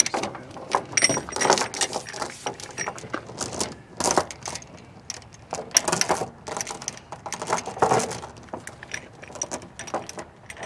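Steel tie-down chain clinking and rattling in irregular bursts as its links are pulled through the hands and hooked onto a ratchet load binder.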